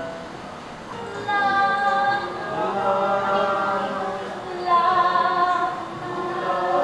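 Women's voices singing together, unaccompanied, in long held notes. The singing swells about a second in and again a little before the end.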